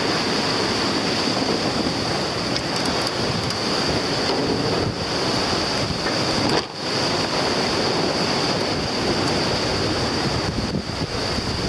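Wind buffeting the microphone over the rush of sea water past the hull of a 47.7-foot Beneteau yacht sailing fast through rough seas. It is a steady, dense noise, with a momentary lull a little after halfway.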